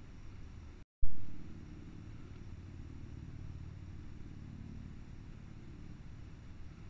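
Steady low rumble of outdoor background noise. About a second in it is broken by a split second of dead silence, then a sharp, loud thump that fades within half a second.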